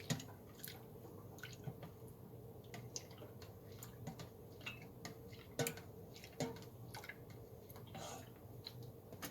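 Kashmiri pink tea being mixed in a pot with a cup: faint drips and small splashes of liquid, one every second or so, over a low steady hum.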